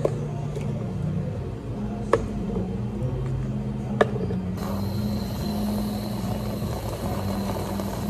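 Thick blended chocolate drink sliding from a blender jug into a plastic cup, with sharp knocks of the jug against the cup about two seconds in and again at four seconds. Then, from about halfway, a steady hiss from a whipped-cream dispenser spraying cream on top, which cuts off at the end.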